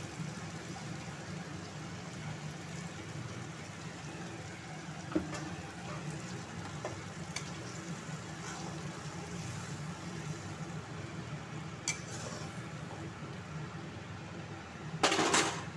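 Chana and ridge gourd curry simmering in an aluminium kadai after water is poured in, stirred with a metal slotted spoon that gives a few light clicks against the pan. A loud metal clatter near the end.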